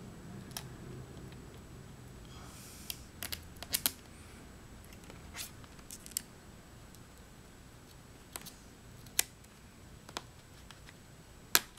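Scattered sharp clicks and taps, about a dozen spread unevenly, as a hand presses along the Alienware 17 R4 laptop's bottom cover to snap its edge clips into place; the loudest click comes near the end.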